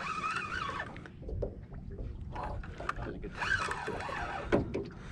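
Low rumble of wind and water around a small fishing boat, with scattered clicks and knocks while a hooked catfish is being reeled in. Faint brief voices are heard near the start and again past the middle.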